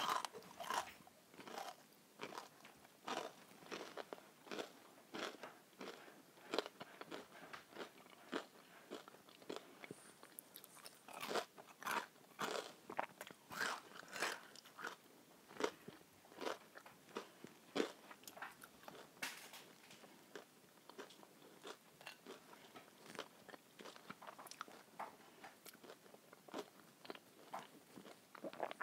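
A person chewing and biting fries and breaded schnitzel close to the microphone: a run of sharp, irregular crunches, a few a second, with no pauses.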